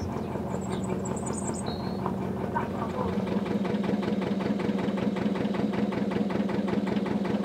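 Narrowboat's air-cooled Lister diesel engine running steadily at low cruising revs, with an even, rapid beat.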